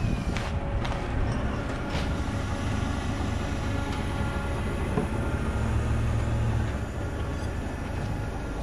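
Engine of a truck-mounted boom crane running steadily while it hoists a log, its low hum growing stronger for about a second past the middle.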